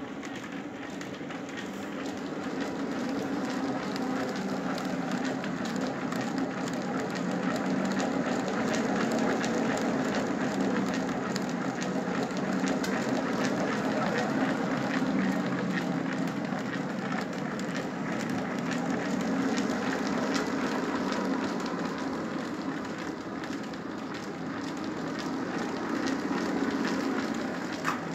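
Old water-mill flat-belt drive running a generator: belts run over the pulleys with a steady low hum under a dense crackling clatter.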